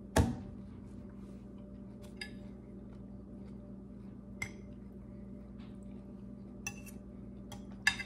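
Eating utensils knocking and clinking on dishware: one solid knock just after the start, then about six light clinks spaced a second or two apart, over a steady low hum.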